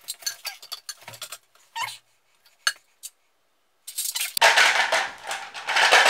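Plastic parts of a Smarter Flush dual-flush valve assembly clicking and rattling as they are handled, with a few separate clicks at first and then a dense, continuous clatter from about four seconds in.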